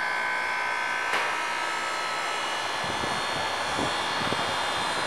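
York split air conditioner running just after being switched on, now working properly: a steady rushing whir with several steady whining tones, and one sharp click about a second in.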